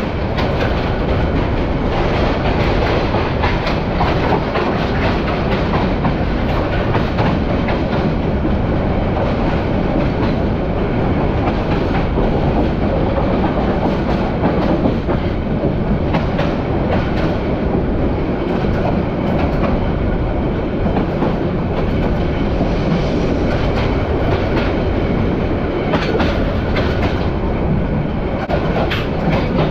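Agnibina Express passenger train of Bangladesh Railway running along the line, heard from inside a carriage: a loud, steady rumble of wheels and coaches with occasional clicks over the rail joints.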